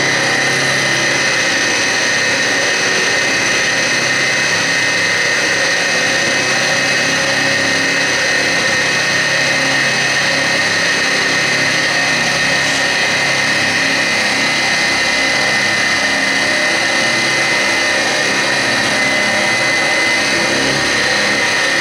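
Grizzly G0704 benchtop mill, converted to CNC, cutting an aluminum plate with a quarter-inch four-flute carbide end mill at about 2,000 RPM and 16 inches per minute. The spindle and cutter give a steady, loud machining whine, with chips breaking off throughout.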